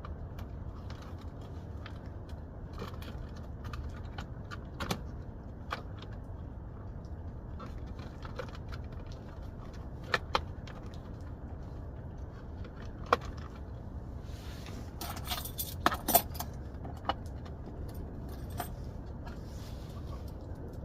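Scattered clicks and taps of plastic steering-column trim and small parts being handled, with a burst of metallic jingling and rattling about fifteen seconds in, over a steady low hum.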